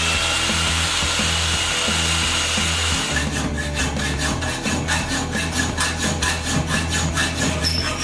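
A jigsaw running steadily as it cuts a small metal part clamped in a vise. About three seconds in it stops, and a flat hand file rasps across the metal in quick, even strokes.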